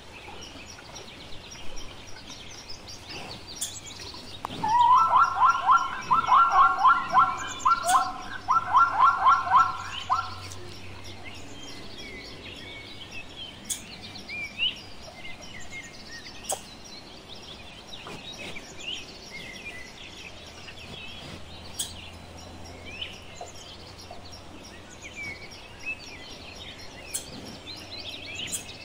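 Plains zebra barking call: a rapid series of harsh, yelping pulses in three quick runs, starting about five seconds in and lasting about five seconds. Small birds chirp faintly throughout.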